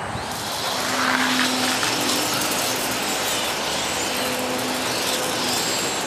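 Dense, continuous chatter of thousands of European starlings massed in the trees, a steady wash of many overlapping chirps.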